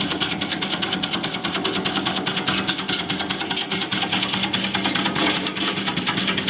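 Palm-sugar slicing machine running, with a rapid, even mechanical clatter over a steady hum.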